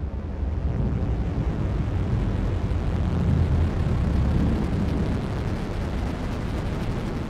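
Spaceship sound effect: a loud, low rumble that swells around the middle and eases off toward the end.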